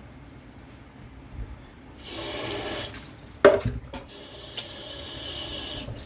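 Kitchen tap running in two spells, the second stopping suddenly as the tap is shut off. A sharp knock sounds between them, the loudest moment.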